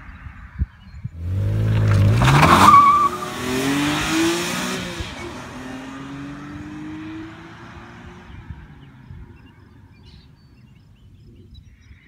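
BMW E46 M3 wagon's S54 straight-six, breathing through OE US headers and an E36 M3 muffler, accelerating hard past. The exhaust note climbs in pitch, dips briefly about three seconds in, climbs again, then fades as the car pulls away.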